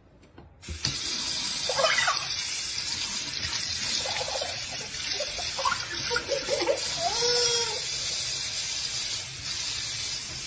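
Kitchen tap running into a stainless steel sink, a steady rush of water that starts just under a second in. A young child's giggles and squeals come over it several times.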